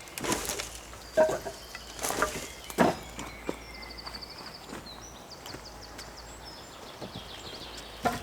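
A few sharp knocks and thuds, like wood being handled, then a small bird singing a rapid, high trill about four seconds in.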